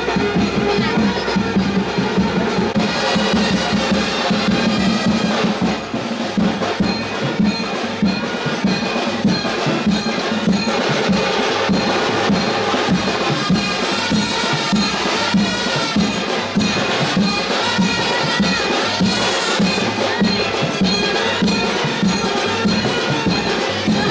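Music with a steady drum beat under melodic instruments.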